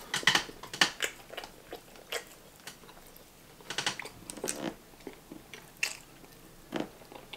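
Close-miked mouth sounds of a person eating lo mein noodles: wet chewing and lip smacks in short clusters of clicks, with quiet gaps between.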